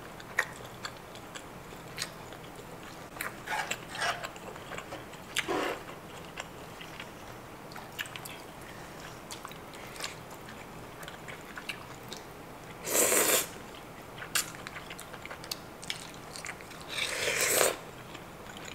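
Close-miked eating sounds: chewing with small wet clicks and smacks, and two loud slurps, about 13 and 17 seconds in, of creamy kimchi udon.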